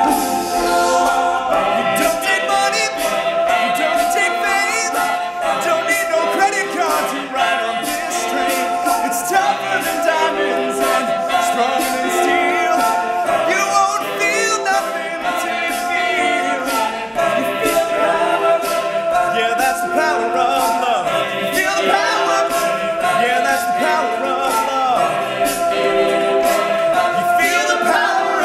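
All-male a cappella group singing in close harmony with no instruments, the voices layered over a steady beat of sharp clicks.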